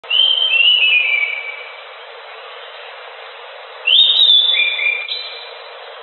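Chestnut-backed thrush (anis macan) singing vigorously: two phrases of clear whistled notes, each note sliding down in pitch, one at the start and another about four seconds in, over a steady background hiss.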